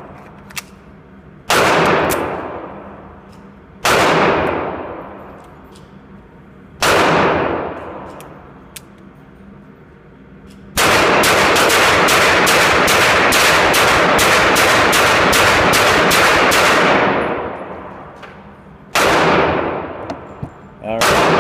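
Beretta 92FS 9mm pistol firing rapidly, each shot echoing around an indoor range: three single shots a couple of seconds apart, then a fast string of about a dozen shots over some six seconds, and one last shot near the end.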